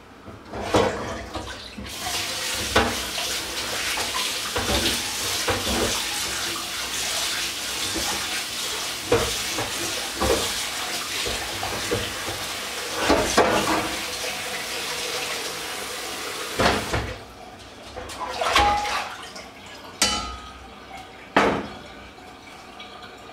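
Kitchen tap running into a sink while pots and dishes clink and knock as they are washed by hand. The water shuts off a little past two-thirds of the way through, and a few separate clatters of dishes follow.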